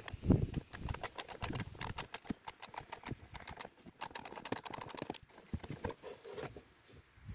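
Hand socket ratchet clicking in quick runs as a bolt on the ECU mounting inside the wheel arch is turned; the clicks thin out near the end.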